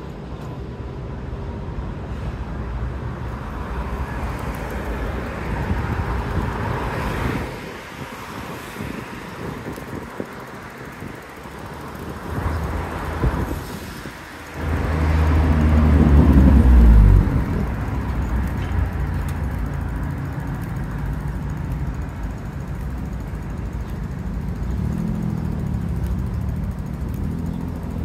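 City street traffic: a steady rumble of passing cars. About halfway through, one vehicle's engine passes close and is loudest for a couple of seconds, with a pitched engine hum.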